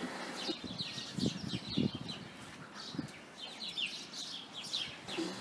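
House sparrows in the yard trees chirping: a busy, fairly faint chatter of many short, quick chirps.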